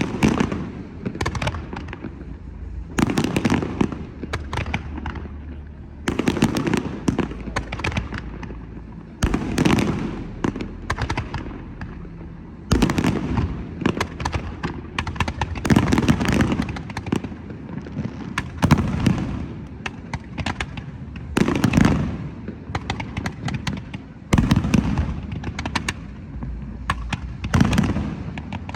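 Aerial firework shells bursting in a display, a loud bang about every three seconds, each followed by a run of crackling.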